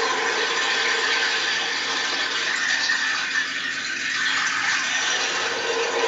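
Long painted rainstick tilted so its filling pours down inside, a steady rain-like rushing that eases briefly about three and a half seconds in before filling out again, heard over a video call.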